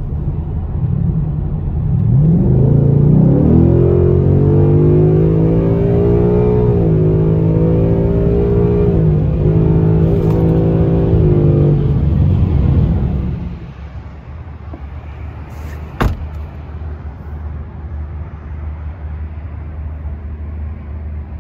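2019 Ford Mustang GT's 5.0-litre V8 under hard acceleration, heard from inside the cabin. About two seconds in, the engine note climbs and runs loud at high revs for some ten seconds, its pitch shifting a couple of times. It then drops back to a low rumble, with a single sharp click about two-thirds of the way through.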